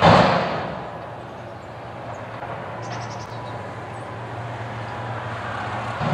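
Front-load garbage truck emptying a dumpster over its cab into the hopper: a loud crash at the start as the upturned dumpster tops out and its load drops in, then the diesel engine running steadily under hydraulic load while the dumpster is held inverted, and a second, smaller bang near the end as it is shaken or knocked.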